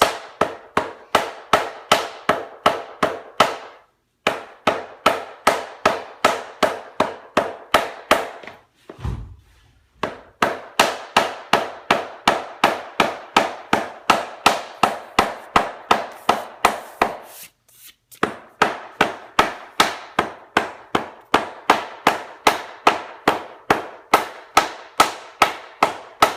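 Rubber mallet tapping a click-lock engineered hardwood plank into place, about three strikes a second in long steady runs with short pauses between them. The mallet is driving the plank's joint closed.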